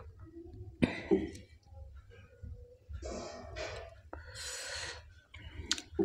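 A person eating with loud breaths close to the microphone. There are two sharp mouth clicks about a second in, two long, breathy exhales in the middle, and another click near the end.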